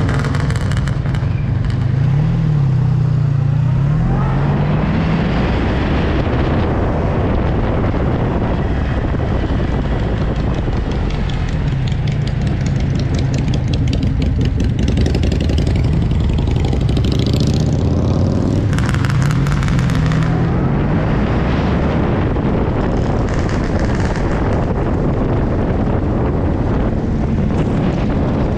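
Motorcycle engine running on the road under a steady rush of noise, its pitch rising and falling a few times as the throttle opens and closes.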